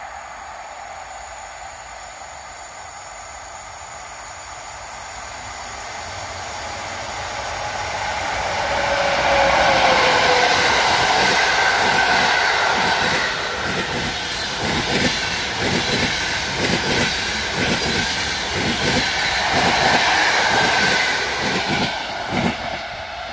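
PKP Intercity long-distance passenger train passing at speed. Its rumble grows over the first several seconds, and a brief tone falls in pitch as the front goes by about ten seconds in. Then comes a rhythmic clickety-clack of the coaches' wheels over the rail joints, easing off just before the end.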